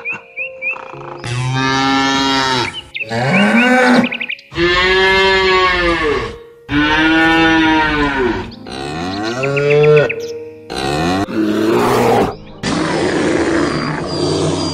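Dairy cows mooing: about six long moos one after another, each rising and then falling in pitch.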